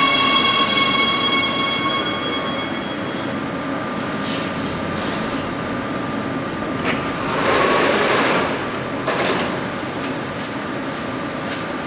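Siemens Inspiro metro train braking to a stop, the whine of its electric traction motors fading out over the first few seconds. About four seconds in its sliding doors open with a few clicks, followed by a louder rushing noise around eight seconds in.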